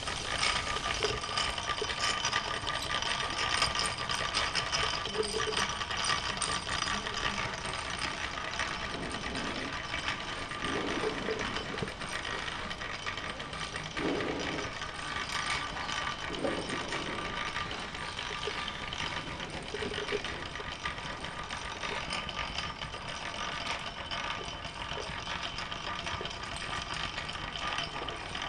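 Wilesco D375 toy steam roller running under steam, its small steam engine and gearing making a steady, dense mechanical clatter.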